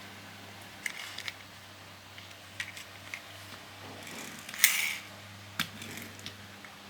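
Small plastic toy excavator parts being handled: a few sharp plastic clicks and a louder short scraping rattle about two-thirds of the way in.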